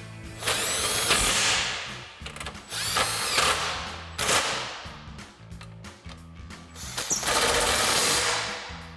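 Cordless impact driver with a 13 mm socket running bolts down in three bursts, its motor winding up and then dropping away each time as the bolts tighten.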